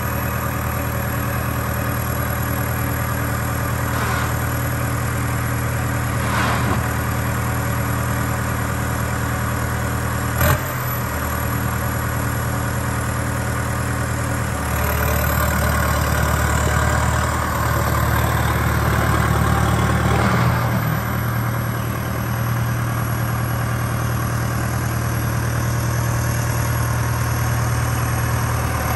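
Case CX90 tractor's diesel engine idling steadily. There is one sharp knock about ten seconds in, and the engine sound grows louder for a few seconds in the middle.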